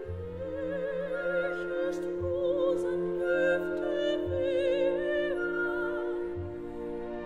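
Background music: an operatic vocal line of long held notes with wide vibrato, over a sustained orchestral accompaniment with a low bass.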